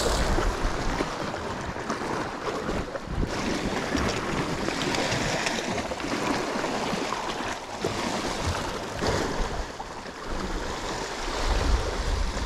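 Sea waves washing against a rocky shore, a steady surging wash, with wind rumbling on the microphone.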